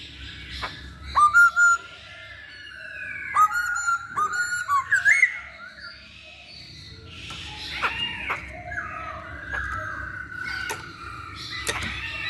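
Masked laughingthrush (poksay Hongkong) singing: loud whistled phrases that glide up and down, broken by bursts of harsh rapid chattering notes about a second in and again around four seconds, then a fresh run of whistled phrases from about seven seconds on.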